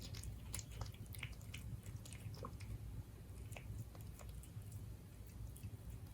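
Siberian cat eating its dinner, chewing and biting with irregular small clicks, over a steady low hum.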